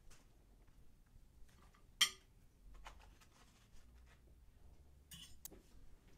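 Knife and fork clinking and scraping quietly on a china dinner plate as food is cut, with one sharp clink about two seconds in and a few lighter clinks later on.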